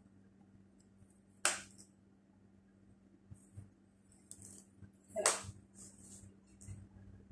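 Hair straightener (flat iron) clacking shut on the hair twice, about a second and a half in and again about five seconds in, with soft hissy swishes of hair sliding through the plates in between. A faint steady hum runs underneath.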